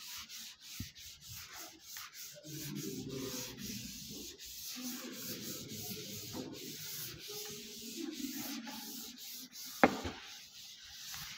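A wooden-backed chalk duster rubbing back and forth across a blackboard, wiping off chalk writing in uneven scratchy strokes. There is one sharp knock near the end.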